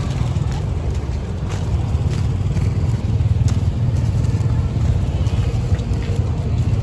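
Low, steady rumble of passing motor traffic, with scattered short clicks and knocks.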